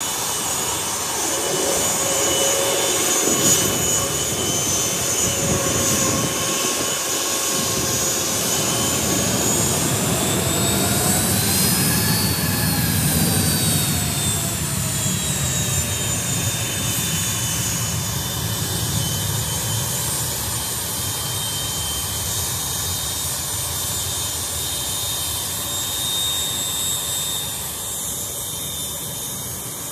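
Jet engines of a Boeing 757 freighter taxiing at idle, a steady whine and rumble whose tones rise and then fall as the aircraft turns in past, loudest in the first half.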